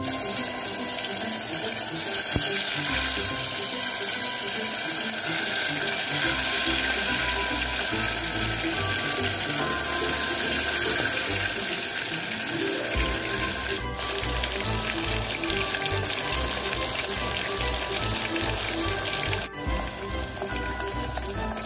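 Batter fritters sizzling in hot oil in a steel pot, a steady loud hiss, with background music.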